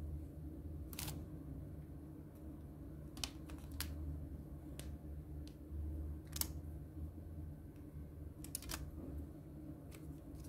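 Rubber bands being pulled off a phone's glass and metal frame, each one snapping or clicking sharply as it comes free. There are several separate clicks over a low, steady hum.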